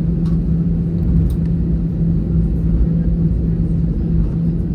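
Cabin noise in an Airbus A320 with its engines running: a steady low rumble with a constant droning hum.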